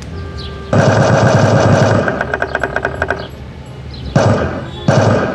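Recorded machine-gun fire played loudly through a portable loudspeaker. A sustained burst starts about a second in, then comes a run of separate shots, a short burst, and heavy fire again near the end.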